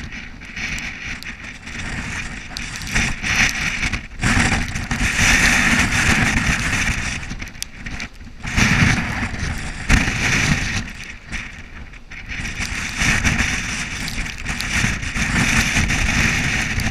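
Gusty hurricane wind blowing across the microphone, a rushing rumble that swells and eases in waves every few seconds.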